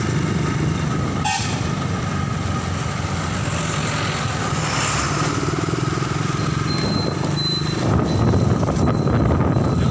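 Motorcycle engine running steadily while riding, with road and wind noise that grows louder near the end.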